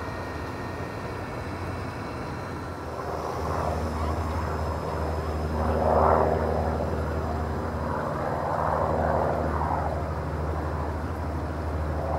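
A low, steady engine drone with a run of overtones sets in about three seconds in and stops shortly before the end, with a few swells of rushing noise over it in the middle.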